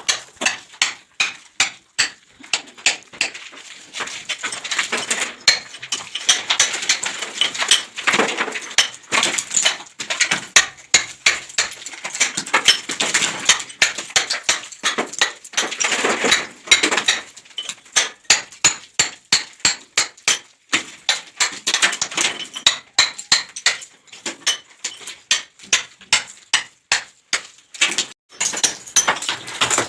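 Repeated hammer blows breaking ceiling plaster, about two sharp knocks a second, with chips clinking and crumbling between strikes. The plaster is being knocked off because water leaking from the floor above soaked into it.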